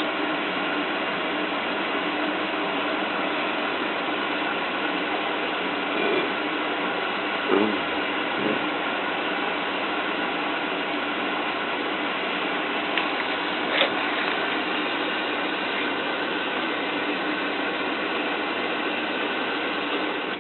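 Zanussi FLA1002W washing machine filling with water: a steady rushing hiss of water coming in through the inlet valve and detergent drawer, which stops right at the end as the first fill completes.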